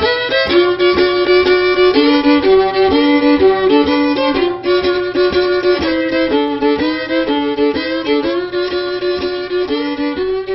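Background music led by a fiddle playing a tune, its notes changing about every half second.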